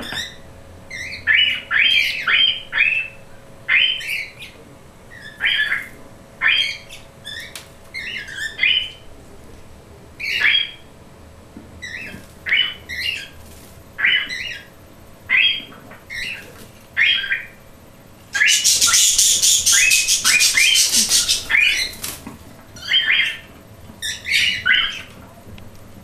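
Pet cockatiels and budgies calling in short, repeated squawks and chirps, about one or two a second. About eighteen seconds in, a loud rapid flutter of wing flapping lasts around three seconds.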